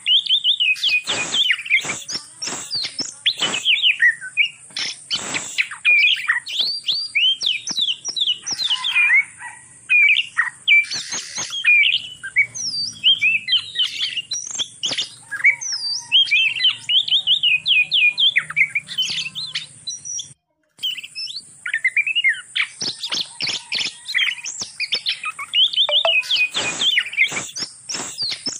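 Oriental magpie-robins (kacer) singing and chattering in a quick, unbroken run of whistled chirps and trills, the calls of a breeding pair. The sound cuts out for a moment about two-thirds of the way in.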